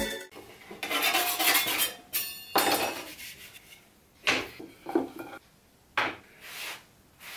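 Triangular hand scraper scraping along a wooden slat for about two seconds. Then a sharp knock and a few short scrapes and clatters as the scraper and the slats are put down on the wooden table.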